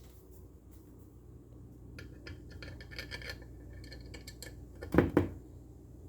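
Handling noise: faint clicking and rattling, then two quick thumps about five seconds in, over a low steady hum.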